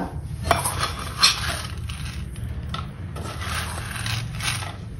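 Sprouted horse gram being scooped from a stainless-steel colander with a small steel bowl: the grains rustle and scrape against the metal, with two sharp clinks in the first second and a half.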